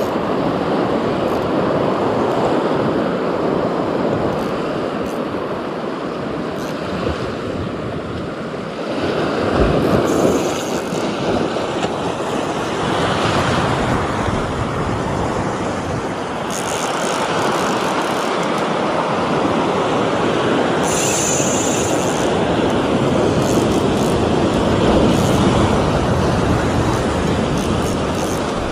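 Surf washing onto a beach: a continuous rushing hiss of breaking waves that swells and eases as sets come in.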